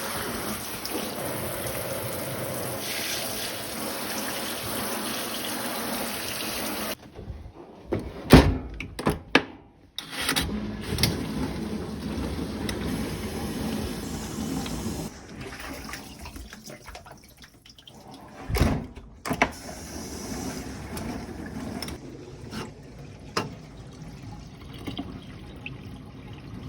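Water running and splashing, broken by several sharp knocks and abrupt changes in the sound.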